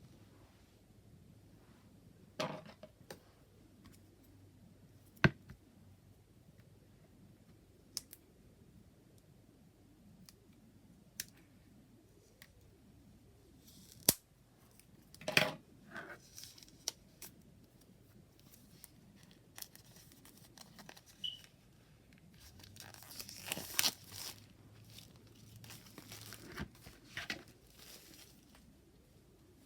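A tarot deck and its paper packaging being handled: scattered sharp taps and clicks, then a longer spell of rustling and crinkling in the second half.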